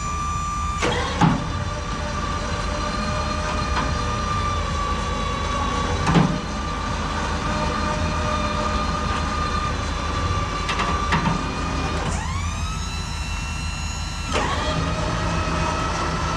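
Heavy diesel equipment running with a low rumble and a steady high whine. The whine dips lower in pitch about twelve seconds in and climbs back about two seconds later. A few metal clanks come about a second, six seconds and eleven seconds in.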